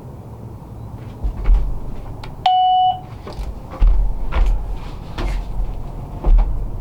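A single short electronic beep, one steady pitch held for under half a second, about two and a half seconds in. Around it are repeated low thumps and rustling from the camera being carried at a hurried walk.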